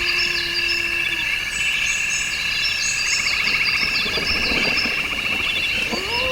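Chorus of frogs and insects trilling steadily, with repeated short high chirps over it. A low drawn-out wailing tone glides down and stops about a second in, and rises back in near the end.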